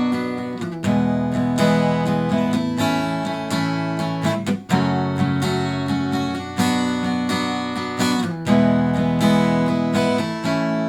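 Acoustic guitar strumming chords, playing the chorus progression of the song in the key of A, where a fourth chord is added; the chord changes about every two seconds.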